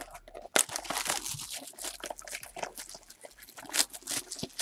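Clear plastic shrink wrap being torn and peeled off a sealed box of trading cards, a dense run of crinkling and crackling with sharp snaps.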